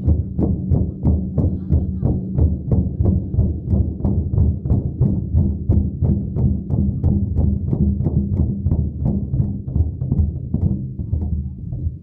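Group of large hand-held frame drums beaten together in a steady pulse of about three beats a second, with a deep booming tone. The beating thins out near the end.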